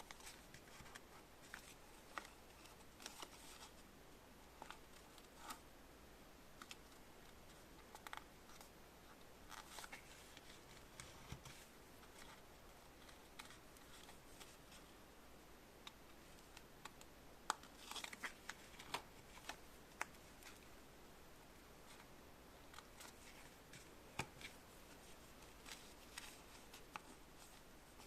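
Quiet handling noises: scattered faint clicks and short rustles of small objects being moved about, more of them in a cluster a little past the middle.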